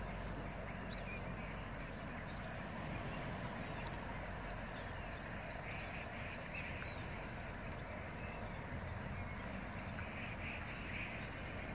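Faint scattered calls from waterbirds and small birds, short chirps with a few duck-like calls, over a steady low outdoor rumble.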